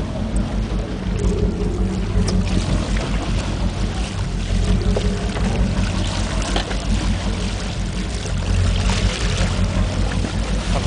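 Boat's engine running steadily, with wind on the microphone and water sloshing against the hull.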